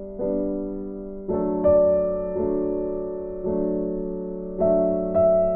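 Background music: slow piano chords, a new one struck about once a second and left to ring and fade.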